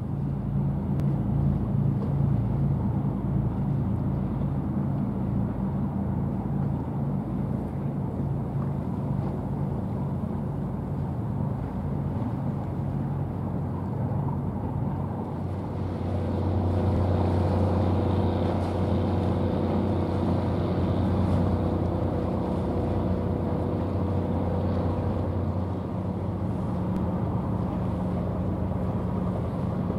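Steady low engine hum from a passing container ship, a drone of several low tones over a noisy background. The tones shift about halfway through.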